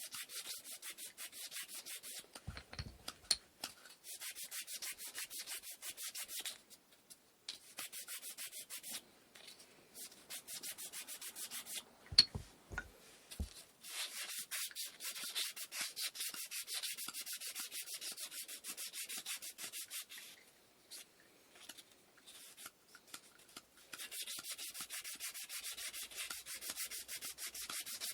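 Hand-sanding wooden inkle loom parts with sandpaper: runs of quick back-and-forth scraping strokes, broken by short pauses. A few sharp knocks fall in the pauses, the loudest about twelve seconds in, as a piece is handled or set down.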